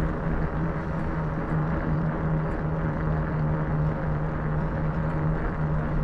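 5-inch knobby fat-bike tyres rolling on pavement, a steady droning hum, over a low rumble of wind on the microphone.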